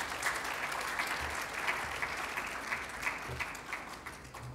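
Lecture-hall audience applauding at the close of a talk, a dense patter of many hands clapping that thins out and dies away near the end.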